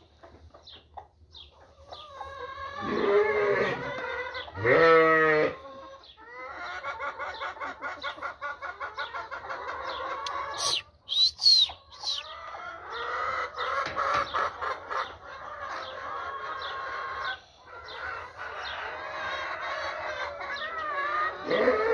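Flock of chickens clucking and cackling in long, rapidly pulsed runs, with two loud drawn-out calls from a bird about three to five seconds in and a short sharp high sound about eleven seconds in.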